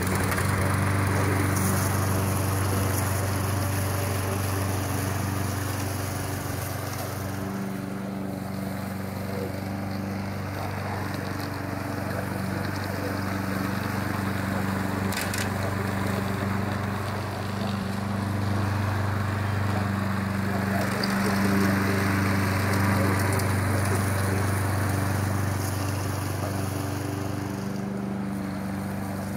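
Lawn mower engine running steadily while cutting grass, its level swelling and easing slightly.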